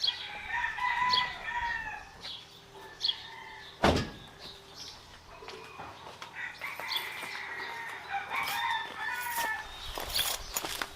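Rooster crowing twice, each crow drawn out over about two seconds, with small birds chirping at intervals. A single sharp knock sounds about four seconds in.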